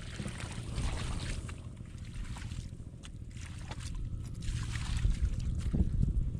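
Water sloshing and splashing in surges that come and go, over a steady rumble of wind on the microphone.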